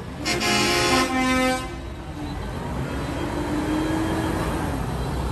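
A tractor horn sounds one loud toot about a second and a half long, over the steady low rumble of the tractor's diesel engine running slowly past. A fainter steady tone follows about three seconds in.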